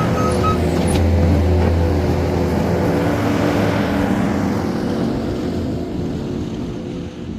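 New Holland C232 compact track loader's diesel engine working under load, swelling in the first couple of seconds and then slowly easing off. Its reversing alarm beeps a few times at the start, then stops.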